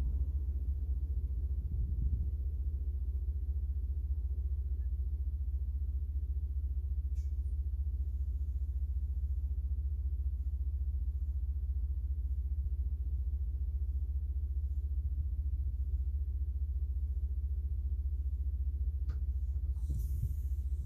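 Caterpillar 3406B diesel engine, a steady low rumble with no change in pitch or level. A faint tick twice and a brief rustle near the end.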